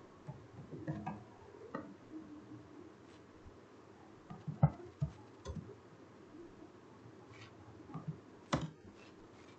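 Computer keyboard keystrokes and mouse clicks: a dozen or so sparse, irregular clicks, the loudest about halfway through.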